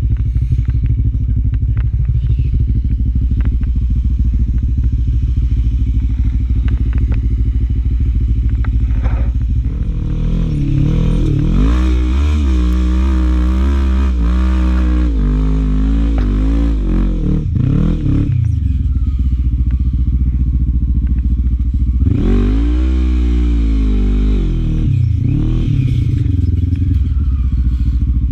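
Sport quad's engine running at a steady fast idle for about ten seconds, then revving up and down repeatedly as the quad is ridden through sand. It runs steadily again, gives another burst of revs a few seconds later, and settles back to a steady run near the end.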